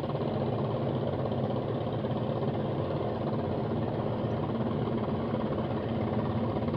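A steady, low engine hum running evenly, with no change in pitch or speed.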